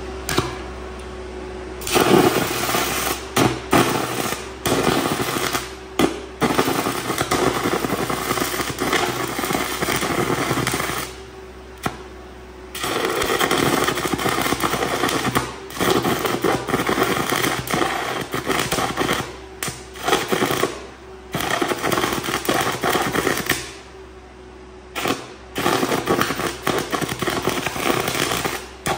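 High-amperage welding arc at 800 amps, struck with a 3/4-inch hot-rolled solid round bar used as the electrode: a loud, harsh crackling and sputtering that is a little violent. It cuts out and restarts a few times, and the engine-driven welder hums steadily underneath.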